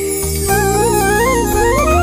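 Background music: a melody moving in small steps that climbs in pitch near the end, over steady low sustained tones.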